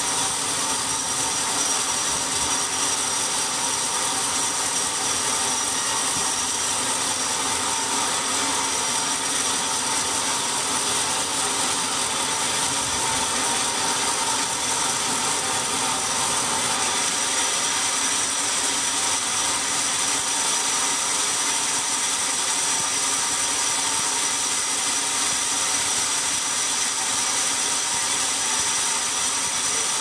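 Large vertical band sawmill running, its blade sawing lengthwise through a big log: a steady high-pitched whine over a constant hiss.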